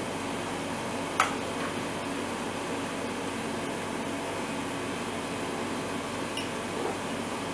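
Small handling sounds as wires are tied with a cable tie on the heater's plastic housing: one sharp click about a second in and a few faint ticks near the end, over a steady background hum.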